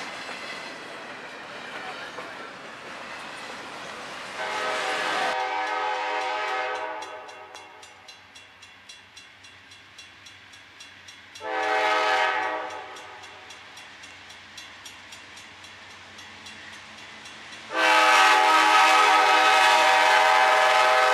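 Freight train rumbling past for the first few seconds, then a diesel locomotive's multi-chime air horn sounding at the grade crossing: a short blast, a second short blast about halfway, and a long, loud blast near the end as the locomotive reaches the crossing. A faint regular ding from the crossing bell is heard between the blasts.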